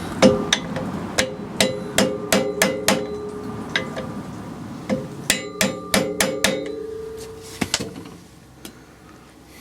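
Hammer tapping lightly on metal, a series of sharp metallic taps with a short ring, irregular and sometimes in quick runs, dying away near the end: tapping down the locking tab on a rear hub nut.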